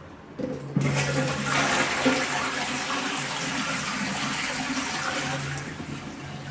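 Water coming on suddenly and running hard from a newly fitted bathroom tap, under test for pressure and leaks, with a steady low hum beneath the rush. It eases off near the end.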